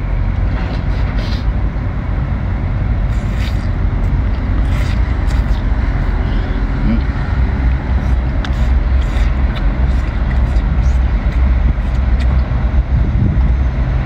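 Steady loud low rumble of outdoor background noise, with scattered short slurping and chewing sounds as razor clams are sucked from their shells and eaten.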